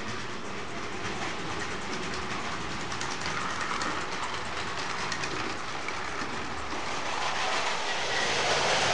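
Vintage tinplate 0 gauge train running over tinplate track, its metal wheels clattering and clicking over the rail joints and points, growing louder as it comes close.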